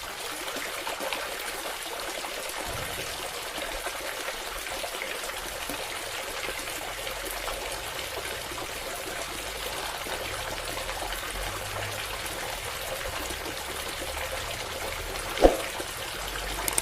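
Water pouring in a steady stream, as from the outlet of a small DC-motor water pump, with one sharp knock near the end.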